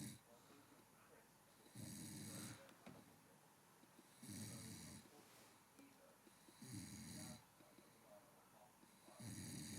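A man snoring in his sleep: a short rasping snore about every two and a half seconds, four in a row, with quiet breathing between them.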